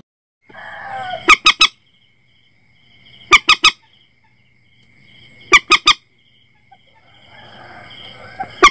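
Common moorhen calls: groups of three quick, sharp call notes repeated about every two seconds, four groups in all. It is a looped playback recording used as a lure for netting the birds at night.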